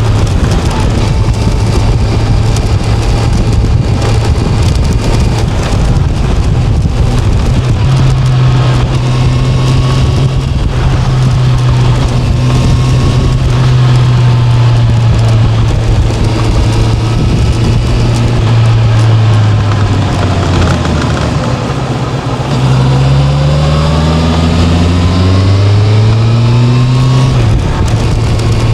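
Motorcycle engine running under way with a steady note. About two thirds in it drops off, then rises again in several stepped climbs as it accelerates through the gears.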